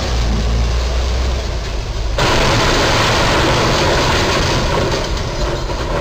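A box truck's engine rumbling and road noise as it drives under a low railroad bridge, heard on a traffic camera's microphone. About two seconds in the low rumble fades and the noise turns brighter and harsher.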